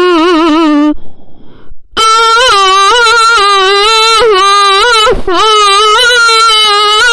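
A single voice singing loud, long held notes without words: one note ends about a second in, and after a short pause a higher note is held with a slight waver, briefly broken about five seconds in.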